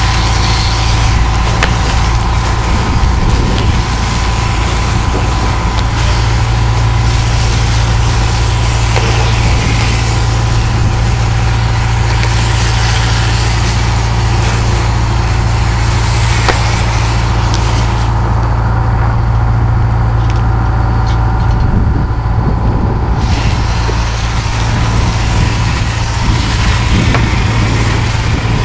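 A steady engine drone, as from the pump feeding a fire hose, under the hiss of a hose nozzle spraying foam solution onto a burning car. About eighteen seconds in, the hiss drops away for some five seconds, then returns.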